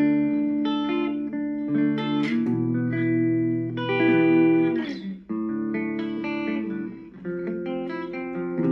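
Korean-made Legend Les Paul Custom electric guitar played clean with both humbuckers on (middle pickup position): picked chords and single notes ringing out, with short breaks about five and seven seconds in.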